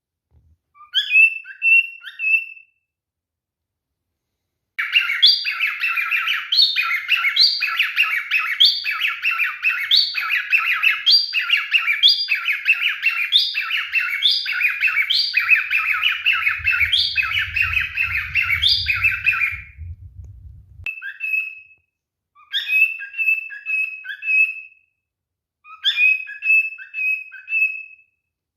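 Male cockatiel whistling short phrases, then a long run of harsh chirps, about one a second for some fifteen seconds, then short whistled phrases again. A low rumble lies under the chirps for a few seconds in the middle.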